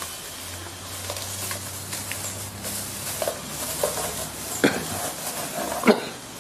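Plastic sheeting rustling and crinkling as it is handled and pulled off a freshly cast cement-cloth tabletop, with two sharp knocks a little over a second apart near the end.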